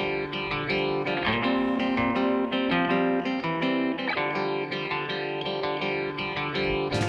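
Background music: guitar with stacked chords changing every second or so.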